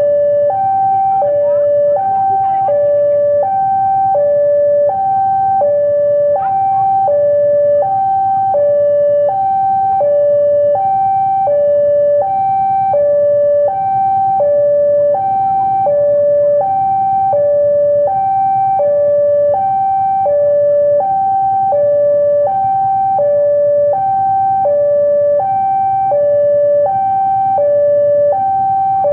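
Electronic two-tone railway level-crossing alarm sounding steadily. It alternates a higher and a lower tone, each about half a second long, about once a second, with no rise or fall in pitch.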